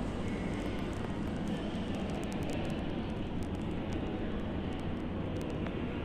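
Several KDK industrial ceiling fans running together: a steady rush of air with a low motor hum, and a few faint ticks.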